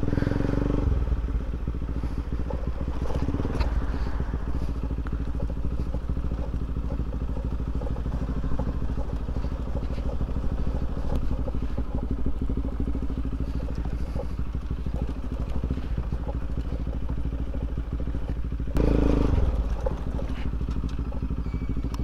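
Motorcycle engine running steadily while riding, with wind on the microphone; it gets louder for a second or so near the end.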